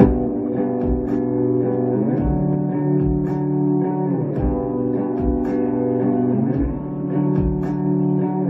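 Electric guitar played through an amplifier, coming in suddenly with sustained ringing chords that change every second or two. A low thump sounds about once a second beneath the chords.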